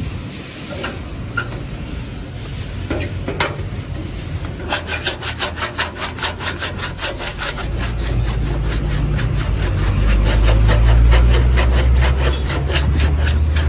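Fast, even scraping strokes, about five a second, like a tool working on a workpiece, starting a few seconds in. A low hum builds up under them in the second half.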